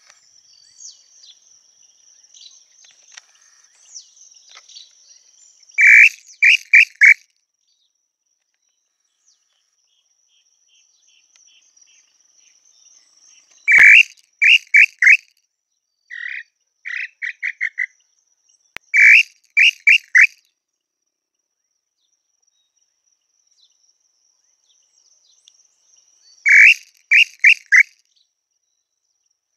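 Tataupa tinamou (inhambu-chintã) calling: five short phrases of clear whistled notes, each a strong first note followed by three or four quicker ones, over a steady high insect trill.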